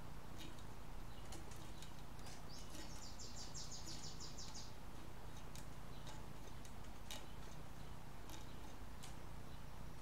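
Faint scattered ticks and clicks of enamelled copper wire being unwound by hand from an LG direct-drive motor's stator coil, over a steady low hum. A high, rapid trill runs for about two seconds near the middle.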